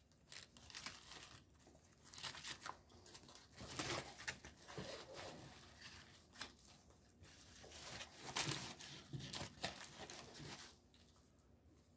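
Foil-lined paper sandwich wrappers being unfolded and torn open by hand: faint, irregular crinkling and rustling that stops about a second before the end.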